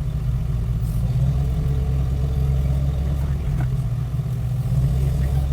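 A motor vehicle's engine running steadily with an even low drone.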